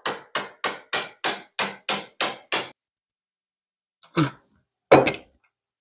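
Hammer tapping a small pry bar in a quick, even run of about nine strikes, roughly three a second, then two separate knocks near the end, working carved wooden ornaments loose from an old wooden window cornice.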